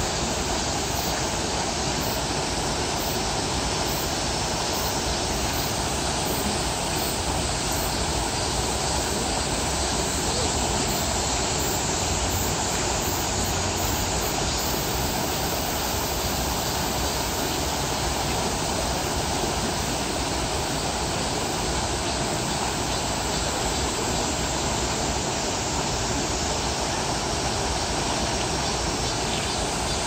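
Mountain stream rushing steadily over rocks, with a small cascade spilling into a pool.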